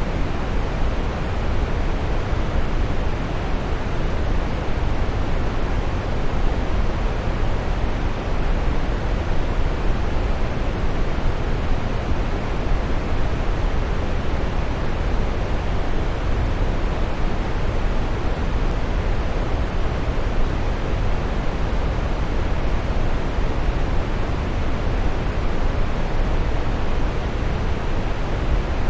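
Waterfall: water falling and splashing in a steady, even rush, strongest in the low end.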